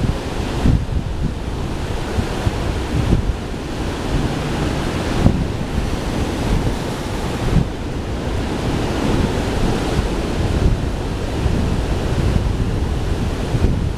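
Mediterranean Sea waves washing onto the shore, a continuous surging rush, with wind buffeting the microphone.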